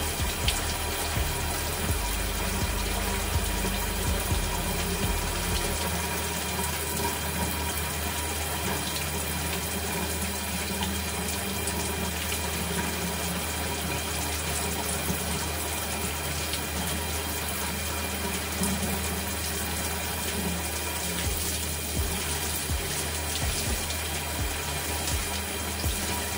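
Shower running: a steady spray of water falling and splashing.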